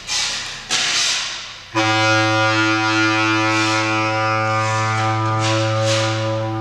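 A bass clarinet holds one long, steady low note with a reedy, hollow tone. It comes in about two seconds in, after two short breathy rushes of noise.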